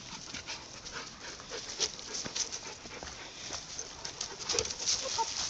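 Dogs' paws and a walker's footsteps rustling and crunching through fallen leaves on a trail: an irregular run of short scuffs and crackles.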